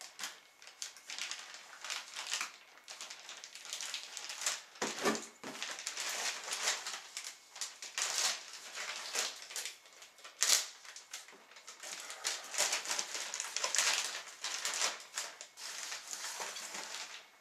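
Plastic packaging bags crinkling and rustling as the foam parts of an RC model plane are handled and unwrapped, an irregular crackle with one loud sharp snap about ten seconds in.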